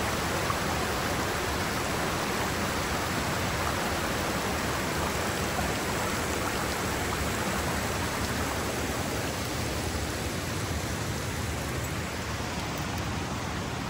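Spring-fed stream spilling over low stone weirs in small cascades: a steady, even rush of falling and running water.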